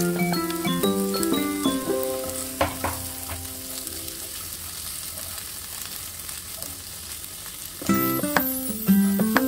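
Chopped onions, tomatoes and peppers sizzling in oil in a nonstick frying pan while a silicone spatula stirs them, with one knock a few seconds in. Light background music plays over the first few seconds and comes back near the end.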